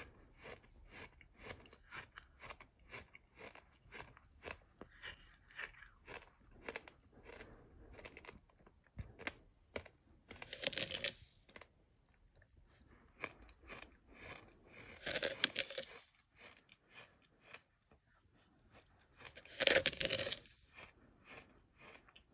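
Close-miked chewing of a mouthful of sand: short gritty crunches about two a second. Three louder, longer gritty crunches come about 11, 15 and 20 seconds in.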